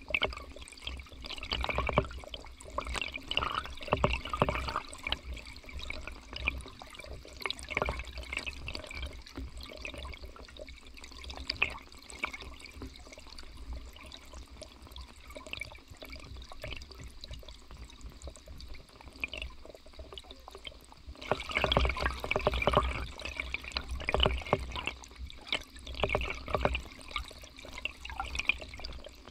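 Shallow river current heard by an underwater camera: irregular gurgling and bubbling with a steady low rumble, louder for a few seconds near the start and again about three-quarters through.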